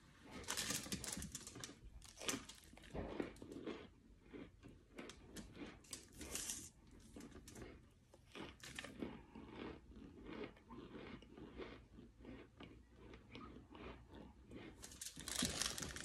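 Crisp, crunchy white chunks being bitten and chewed close to the microphone: a run of small, uneven crunches and crackles throughout.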